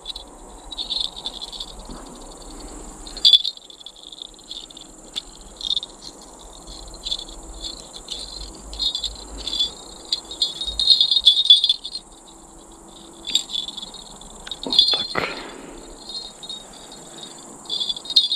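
A pair of small metal bite-alarm bells on a fishing rod tip jingling in short, irregular bursts as they are handled and clipped on. Under them, a steady high chirring of night insects.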